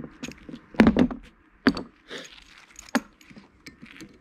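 Knocks and clanks of a Volkswagen MK3 GTI/G60 brake caliper being worked apart by hand, its body pulled from the carrier bracket: a heavy knock about a second in, then two sharper single knocks a little after and near three seconds, with light metal clicks between.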